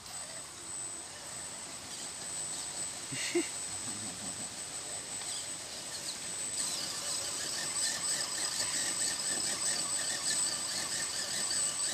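Radio-controlled scale rock crawler's electric motor and gearbox whining as it drives slowly at the stream's edge, the high whine growing louder about halfway through. Flowing stream water runs underneath.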